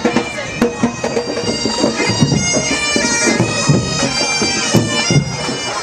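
Bagpipes playing a tune, with drum beats underneath: a pipe band marching.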